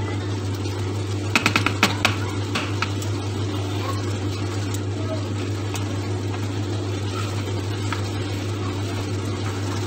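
Spatula stirring and scraping simmering beef mince in a non-stick frying pan, with a quick run of sharp clicks from the utensil against the pan about a second and a half in and a few single clicks later, over a steady low hum.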